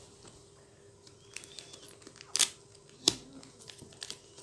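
A package being opened by hand: quiet handling with two sharp snaps, the second less than a second after the first.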